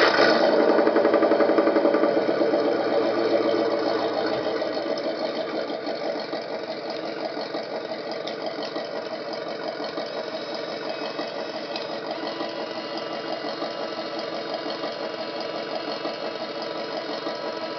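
Engine sound module in an RC scale truck playing a simulated truck engine through its speaker. It is louder just after start-up and settles over about five seconds into a steady, evenly pulsing idle.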